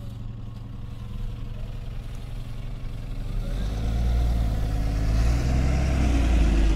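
Diesel engine of a double-decker bus running as the bus drives past, a low rumble that grows louder in the second half as it comes close.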